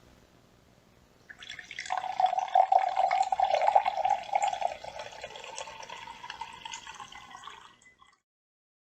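Water poured into a drinking glass: the stream starts about a second in, splashes strongly for a few seconds, then runs more softly and stops near the end.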